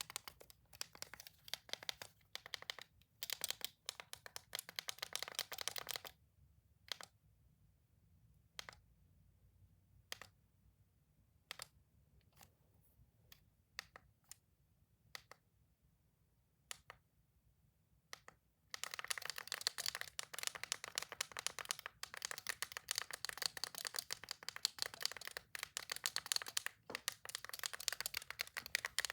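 Toys being clicked close to the microphone: a fast run of clicks, then a long stretch of single clicks spaced well apart, then dense, continuous clicking from about two-thirds of the way in.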